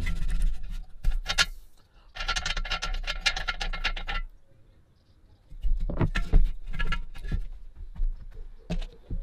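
Rusty metal filler cap on an old Sheen flame gun's tank being twisted and worked by hand. There are sharp metal clicks, then about two seconds of rapid clicking and scraping, then a run of knocks and clinks.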